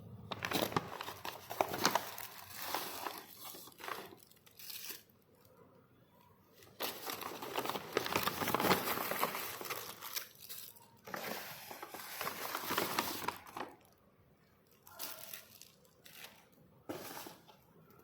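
Crinkling and tearing of food packaging, handled in bursts of a few seconds with short pauses between them.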